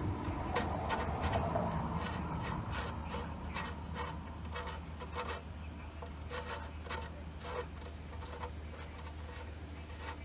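Oil drain plug being unscrewed from a minivan's oil pan, with irregular light clicks and rubbing.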